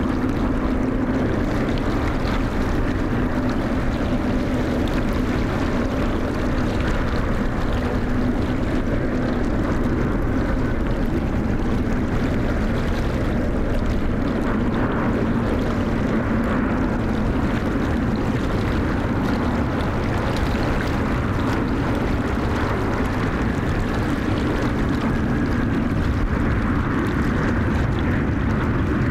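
Steady drone of jet airliner engines, with a constant hum and low wind rumble on the microphone.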